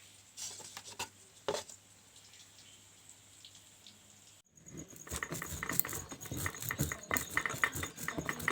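Stone mortar and pestle (cobek and ulekan) grinding tomatoes into sambal: a rapid, irregular clatter of knocks and scrapes that starts a little past halfway, after a few scattered knocks and a quiet stretch.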